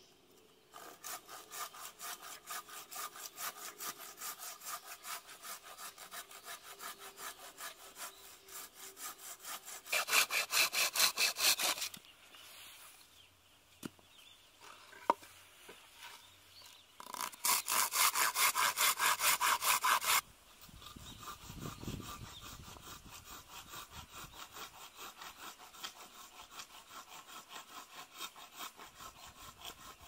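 Curved pruning saw cutting through scrap lumber by hand in quick back-and-forth strokes. Two spells of louder, harder sawing stand out, with a short pause and a few knocks between them.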